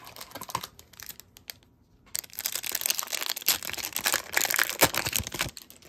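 Wrapper of a 2021-22 O-Pee-Chee hockey card pack being torn open and crinkled. Light rustling at first, then a dense, crackly tearing about two seconds in that lasts about three seconds.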